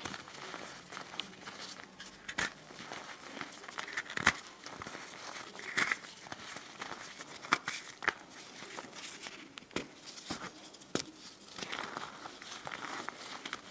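Green-dyed reformed gym chalk block with a slight crust being crushed and crumbled by hand: irregular crisp crackles and crunches, with a few louder snaps.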